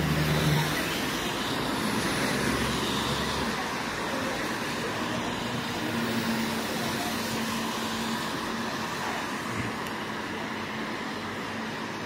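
Road traffic on a wet street: steady tyre hiss from passing cars, with an engine hum that ends about half a second in and another vehicle's engine audible around the middle.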